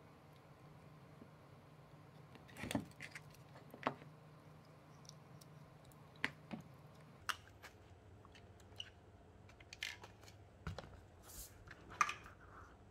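Hands handling RC wiring: scattered small clicks and rustles as gold bullet connectors are pushed together and wires and plastic parts are moved about on a cutting mat, with a faint steady hum underneath.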